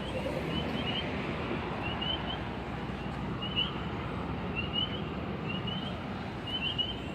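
Recorded calls of the coquí frog played through an outdoor sound display's speaker: short, high, rising chirps, often in pairs, recurring about once a second over a steady background rush.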